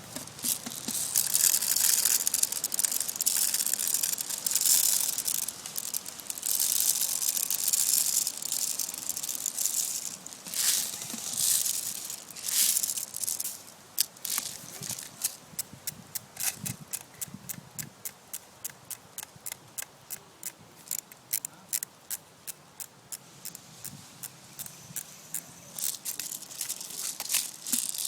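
Footsteps through dry leaves and brush. For the first half there is loud, irregular rustling; from about halfway on, steady crunching steps come about two a second.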